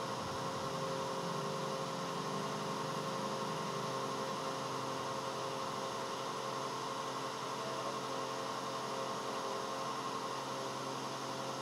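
Steady hum with several constant tones over an even hiss, unchanging throughout.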